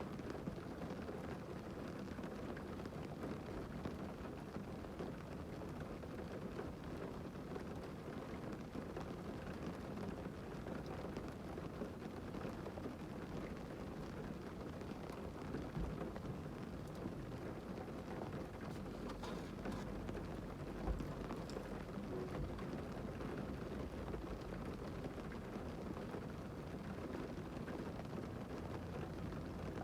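Rain falling steadily on a parked car, heard from inside the cabin as an even patter, with one sharper knock about two-thirds of the way through.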